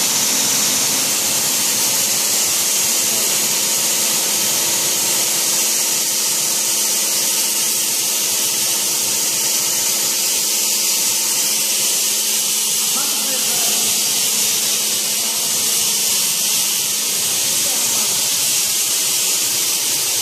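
Compressed-air plaster spray gun of a Wagner PC 830 screw-pump plastering machine hissing steadily as it sprays plaster, with a faint steady machine hum underneath.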